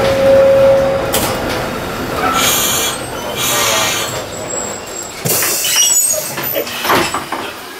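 Trieste–Opicina tramcar running on its rails, heard from the driver's cab: a steady rolling rumble with a short squeal in the first second. Later come high wheel or brake squeals and a few clunks as the car slows into a stop.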